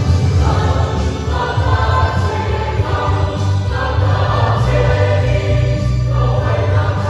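Mixed choir of young men and women singing a hymn together in parts, led by a conductor.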